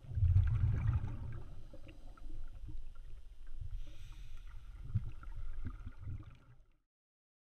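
Underwater sound picked up through a camera's waterproof housing: a low, uneven rumble of water moving against the housing with faint ticks and crackles. It cuts off to silence near the end.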